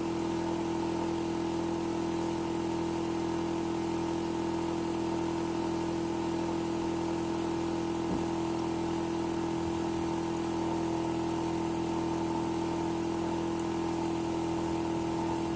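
Hitachi air-conditioner outdoor unit running with a steady, unchanging hum: one strong tone with several fainter tones beneath it. The owner complains of it as a noisy, abnormal sound.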